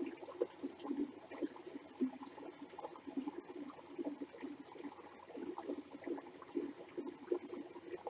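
Small creek trickling and gurgling over rocks, a steady, busy babble of water.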